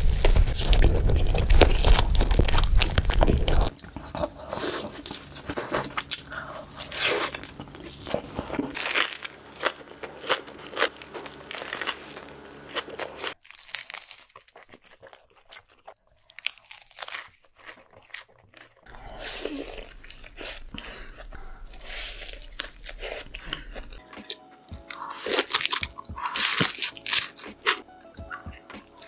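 Close-miked bites and chewing of cheeseburgers and crisp fried food, eating-ASMR mouth sounds, crunching and squishing, in a run of short clips cut together with music underneath. The first few seconds are the loudest.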